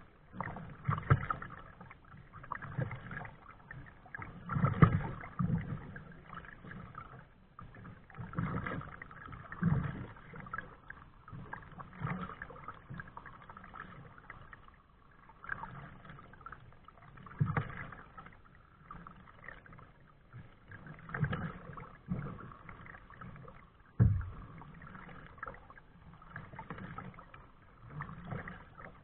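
Kayak paddle strokes dipping and pulling through the water, an irregular series of splashes every one to three seconds over the quieter lapping of water, with one sharp knock partway through.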